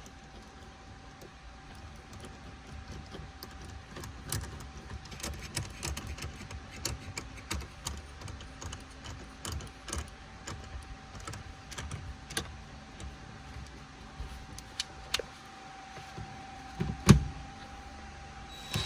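Scattered small clicks and rattles of hand work on the steering wheel's wiring and small parts, then one louder knock near the end, over a faint steady whine.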